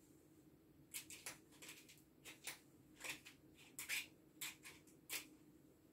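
Vine pruning shears snipping through dried herb stems: about a dozen short, faint, crisp cuts at an irregular pace.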